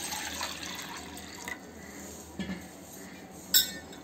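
Water pouring into a stainless steel bowl, strongest for the first second and a half and then easing off, with a single short sharp knock near the end.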